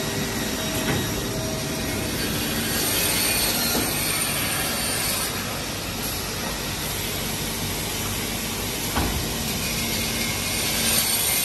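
Holztek CNC panel saw with a travelling blade running as it batch-cuts wood blanks: steady machine noise with a single knock about nine seconds in.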